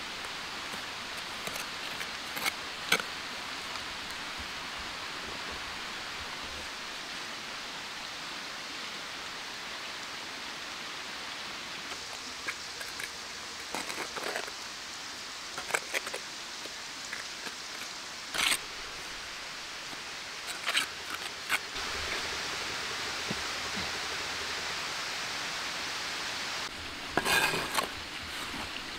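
Scattered short scrapes and knocks of a steel trowel working mortar in a wooden trough and of flat stones being set, with a cluster of them near the end, over a steady hiss.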